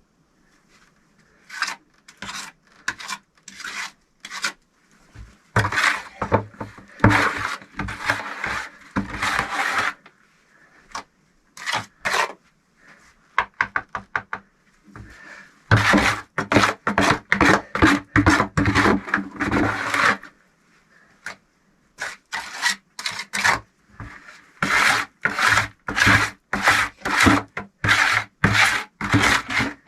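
Repeated rasping, rubbing strokes of something hard being worked back and forth by hand. They come in runs of several strokes a second, broken by short pauses.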